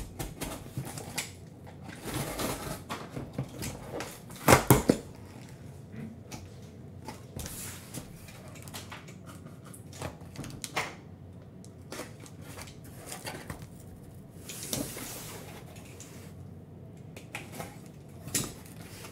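Handling noises from a cardboard shipping case being moved and turned on a table mat: scrapes, rustles and scattered taps and knocks, loudest in a short cluster of knocks about four and a half seconds in.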